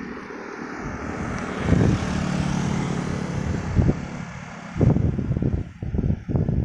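Passing road traffic: a vehicle engine drones past, loudest about two seconds in, followed by uneven low thumps through the second half.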